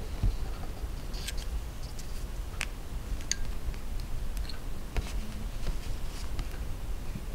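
Irregular small clicks and ticks of steel wrap-and-tap pliers against sterling silver ring wire as the wire is bent and its ends worked together, over a low rumble.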